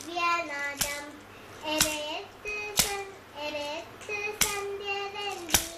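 A voice singing a Malayalam poem in held, gliding notes, with sharp hand claps keeping time about once a second.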